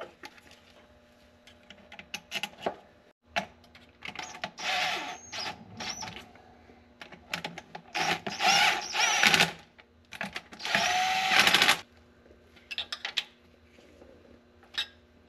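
Cordless drill running in three short bursts, the last with a steady motor whine, driving in the transmission valve body bolts; clicks and clinks of metal parts and tools in between.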